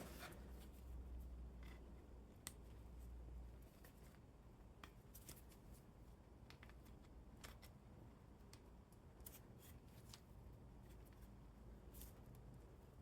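Faint, scattered clicks and handling noises of small hand work on a rubber fuel line, with a low hum for the first few seconds.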